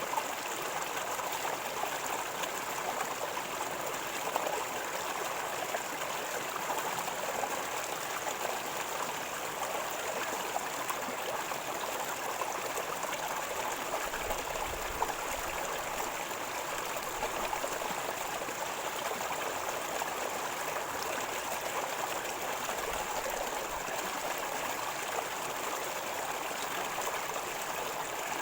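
River water flowing and gurgling steadily.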